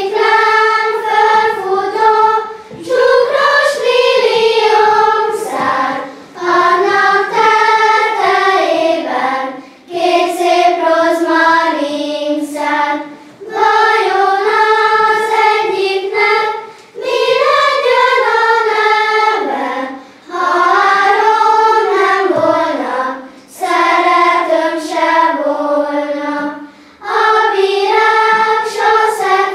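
A children's choir singing a song in unison, in phrases of a few seconds with short breaks for breath between them.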